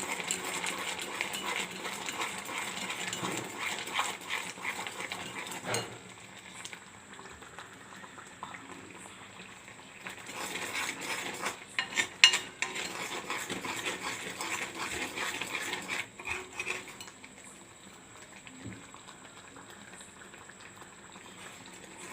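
A spoon stirring and scraping a pan of boiling sugar syrup thickened with ginger paste and rice flour, with clinks against the pan and a sharp knock about halfway through. The stirring eases off for a few seconds twice, leaving the syrup bubbling.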